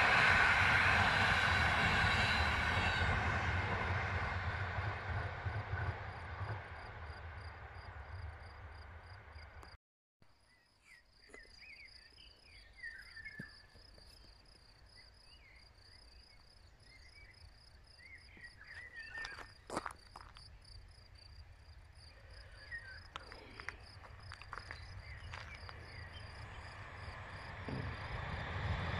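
An electric-hauled passenger train running past, its rumble fading away over the first several seconds. After a sudden break, quiet open country with scattered bird chirps and a high chirp repeating several times a second. Near the end the next train is heard approaching.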